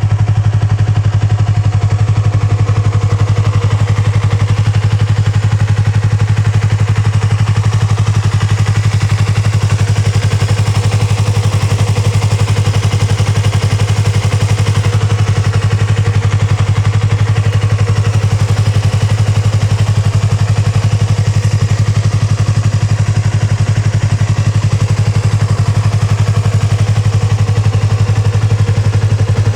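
Yamaha YZF-R25's parallel-twin engine idling steadily through an aftermarket Yoshimura Cyclone silencer, holding an even, unchanging speed.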